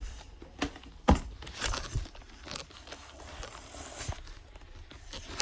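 Scattered knocks and rustles of a handheld phone camera being moved about while the person filming walks; the loudest knock comes about a second in.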